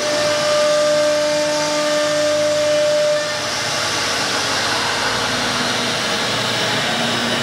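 1325 CNC wood router's high-speed spindle cutting a fretwork pattern through a wooden sheet: a steady, loud rush of motor and cutting noise. A held tone in it stops a little over three seconds in, and the rush continues slightly quieter.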